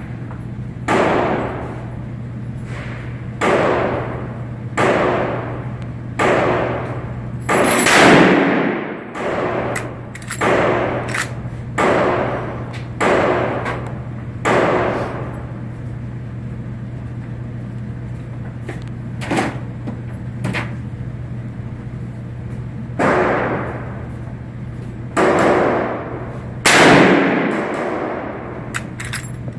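Rifle shots from a Marlin 336BL .30-30 lever-action rifle, each crack followed by an echoing tail. About seventeen shots come at irregular intervals, some in quick succession, with a pause of several seconds in the middle.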